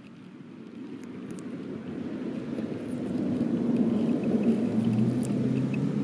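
Low engine rumble with a steady hum, growing louder over the first four seconds and then holding, like a motor vehicle drawing near.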